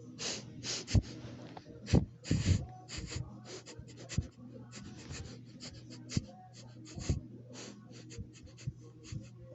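Puppy sniffing right at the microphone: quick sniffs in irregular runs. A few louder dull knocks break in, the loudest about one and two seconds in.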